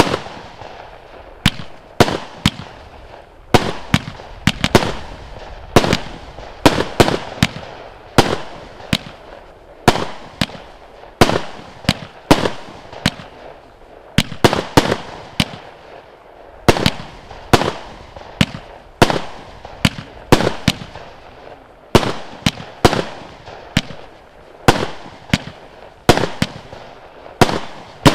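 Pangu Fireworks Pyro Spirits firework cake firing shot after shot: a steady string of sharp bangs and pops from the tubes and the star bursts, about two a second without a break.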